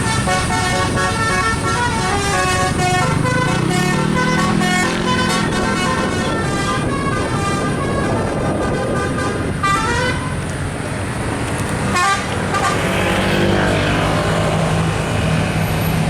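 Musical 'telolet' air horns playing a rapid multi-note tune over running vehicle engines. After about ten seconds the horn notes thin out, leaving engine and road noise.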